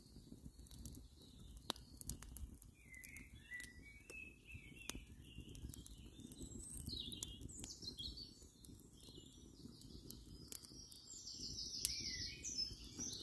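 Woodland birds singing, a busy mix of short chirps and trills that grows fuller near the end, with a few sharp crackles from the open wood fire.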